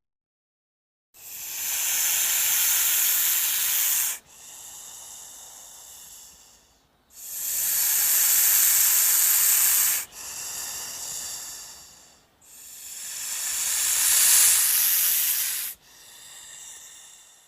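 Asp hissing sound effect: three long, loud snake hisses, each cutting off suddenly and followed by a softer, shorter hiss.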